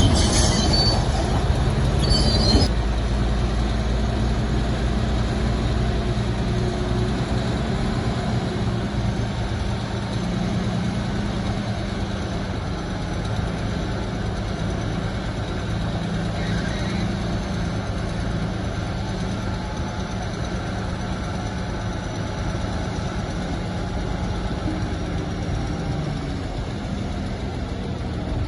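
Diesel engine of heavy earthmoving machinery running steadily under work, with a louder, brighter clatter in the first two and a half seconds.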